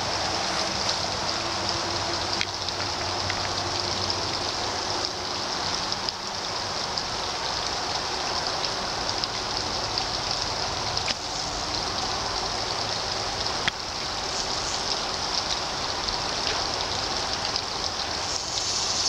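Steady rushing of creek water, with a faint low hum in the first few seconds and a few light clicks.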